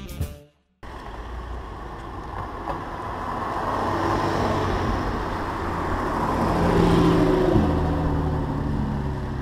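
Intro music cuts off within the first second. Then a Porsche 964 Carrera's air-cooled flat-six drives past at street speed over traffic noise, its engine sound swelling to its loudest about seven seconds in and easing off as the car pulls away.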